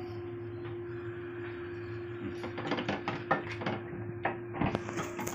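Wooden spatula stirring beef and masala in a stainless steel pan: irregular clicks, knocks and scrapes against the pan, coming thick from about two seconds in, over a steady low hum.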